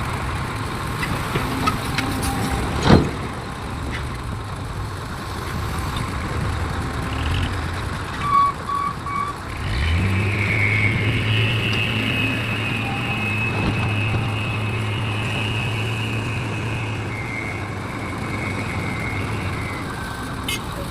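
Heavy diesel machinery running, with a sharp knock about three seconds in and three short beeps around eight seconds. About ten seconds in, an engine picks up to a strong steady drone with a high whine over it, which holds for about ten seconds before easing off.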